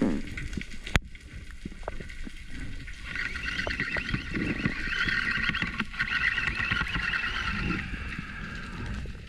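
Underwater sound through a diving camera: muffled water rumble and handling knocks, with one sharp click about a second in. From about three seconds in to near the end a wavering high whine rises over it, then fades.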